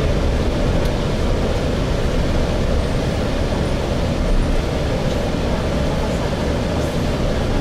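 Steady rumble of a Gillig Phantom transit bus heard from inside the cabin, engine and running noise with no distinct events.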